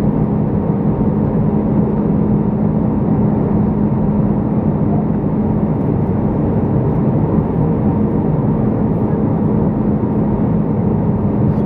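Steady cabin noise inside an Airbus A319 descending to land: the jet engines and the air rushing past the fuselage make a constant drone with an even low hum that does not change.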